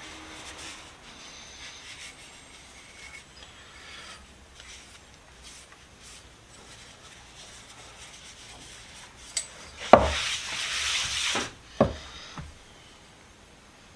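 A rag rubbing over a steel wrench while oil is worked onto it, with faint scratchy wiping. About ten seconds in there is a knock, then a loud hiss for about a second and a half, then two more knocks.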